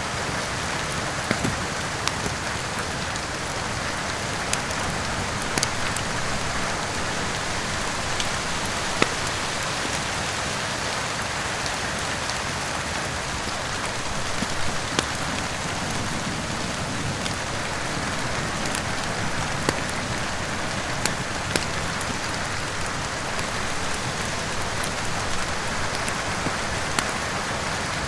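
Steady heavy rain mixed with a wood fire, with irregular sharp crackles and pops every second or two.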